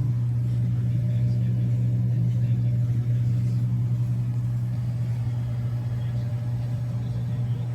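Steady low mechanical hum from a running motor, even in pitch and level throughout.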